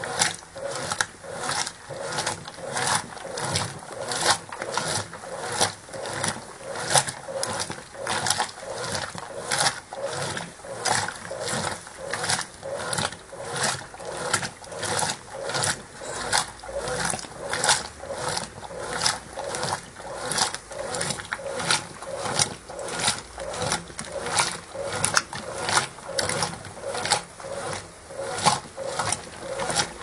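Brastemp Ative 11 kg top-load washing machine in its wash agitation, the agitator swishing back and forth through sudsy water in a steady rhythm of about two strokes a second, churning and sloshing the load.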